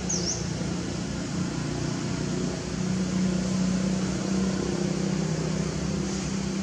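A steady low mechanical hum under a constant high hiss, with one short high chirp right at the start.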